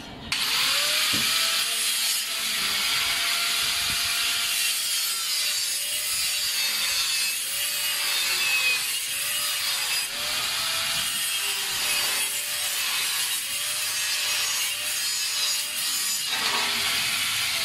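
Saw cutting through wood: a steady rasping with a faint wavering whine beneath it, starting abruptly and stopping shortly before the end.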